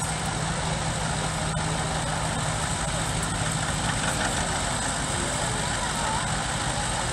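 Small antique Oliver tractor's engine running steadily.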